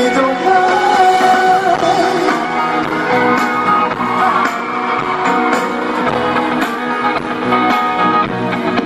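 Live band music with a male lead singer and guitar, recorded from the audience with a lot of background noise.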